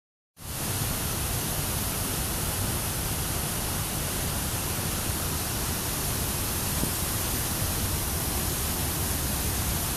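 Steady rushing of white water from the Sol Duc River and its falls, a constant hiss that starts abruptly about half a second in.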